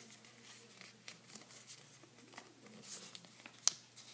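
A sheet of patterned origami paper rustling and crinkling faintly as fingers tuck in its corners and fold it, with one sharp tick a little over three and a half seconds in.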